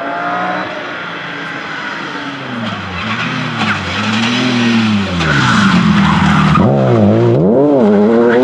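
BMW rally car's engine coming in hard, then falling in revs under braking, with short rising blips as it changes down. Tyres skid through the turn while the engine, loudest near the end, swoops up and down several times as it takes the corner.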